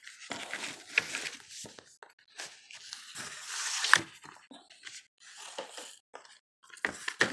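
Cardboard mailer packaging rustling and scraping as it is handled, in irregular bursts, with a sharper click about four seconds in and another near the end.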